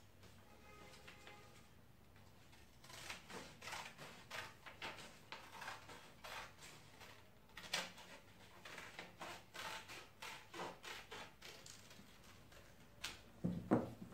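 Scissors snipping through a paper pattern: a run of short, irregular cuts, about two a second, with paper rustling. Near the end comes a louder knock as the pattern and scissors are set down on the foam.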